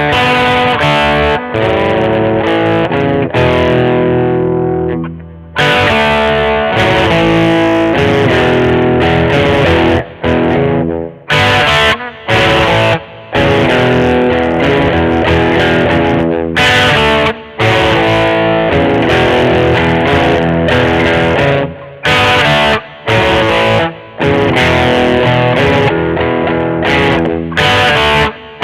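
Schecter Omen 6 electric guitar playing sustained chords and riff lines through an amplifier, the sound stopping short and starting again many times.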